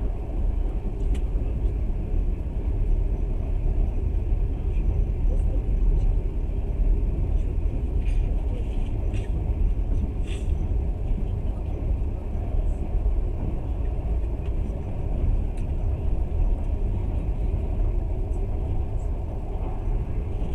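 Passenger train running at speed, heard from inside the carriage: a steady low rumble of wheels on the track, with a few faint clicks about eight to ten seconds in.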